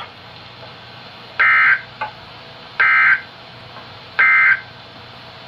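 NOAA Weather Radio SAME end-of-message data tones: three short, identical bursts of a buzzing two-tone digital signal, each under half a second and about a second and a half apart, over steady receiver hiss. They mark the end of the warning message.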